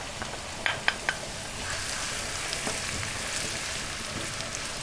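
Chopped onion sizzling in hot vegetable oil in a non-stick frying pan, stirred with a wooden spatula. There are a few sharp taps in the first second or so, then a steady sizzle.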